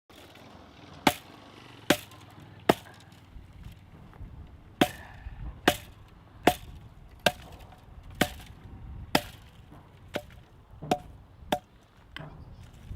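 Repeated chopping blows, about a dozen sharp strikes at roughly one a second, each with a short ring.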